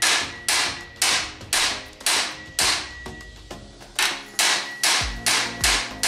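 Body hammer striking a sheet-steel patch panel clamped over a wood-and-steel buck, flattening the formed edge. The blows come steadily at about two a second, with a brief pause a little past the middle.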